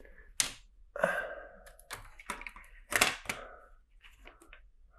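Hard plastic LEGO monorail track pieces and bricks being handled and fitted together: several sharp clicks with short rattling and scraping between them.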